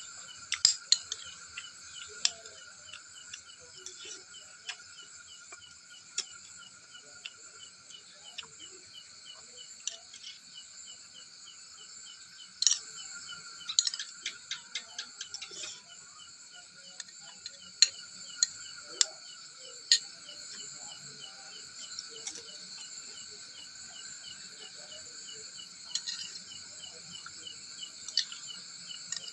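Night insect chorus of crickets, a steady high trill with rapid repeating chirps, under the sharp clinks of cutlery on dishes while eating, a run of clinks about halfway through.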